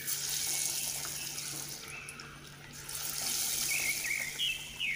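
Hot oil sizzling as a banana flower vada patty is dropped into a deep-frying pan. The sizzle eases about two seconds in and rises again about three seconds in.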